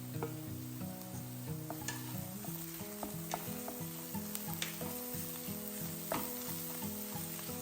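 Food sizzling in hot oil in a pan while being stirred, with sharp clicks of the spoon against the pan, over soft background music.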